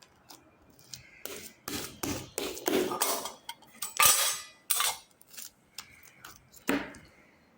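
A run of clattering knocks and clinks of hard objects being handled, like dishes or utensils, loudest about four seconds in and ending with one sharp knock near the end.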